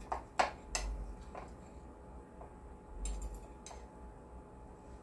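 A metal fork clicking and scraping against a plate while cutting off a bite of omelet: several light clicks in the first second and a couple more about three seconds in.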